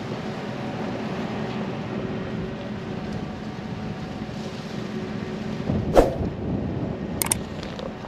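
Steady, low running of a vehicle's engine. A single sharp thump comes about six seconds in, with a couple of clicks just after.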